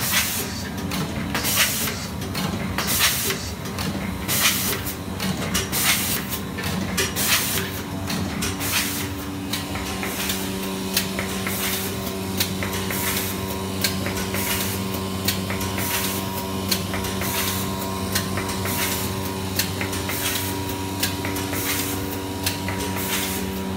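Vertical form-fill-seal packing machine running in its cycle: short sharp sounds repeating about every second and a half over a steady machine hum, the hum growing stronger and the strokes more frequent about ten seconds in.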